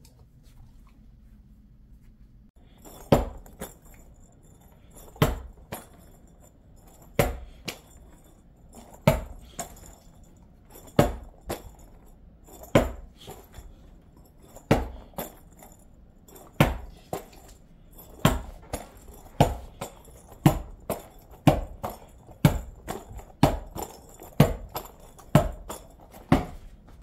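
A long series of sharp knocks, each with a brief ringing tail. They start about two and a half seconds in, come about every two seconds at first, then about once a second in the second half.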